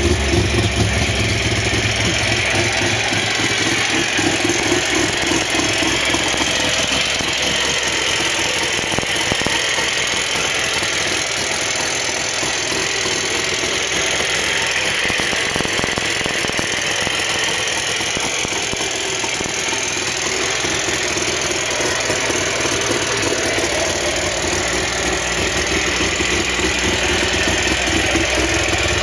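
FSM Syrena 105's 842 cc three-cylinder two-stroke engine idling steadily.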